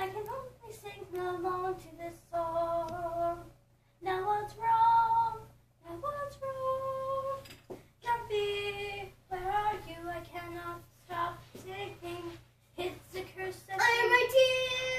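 A child singing unaccompanied as a puppet's voice, in short phrases with held notes and brief pauses between them, rising louder and higher near the end.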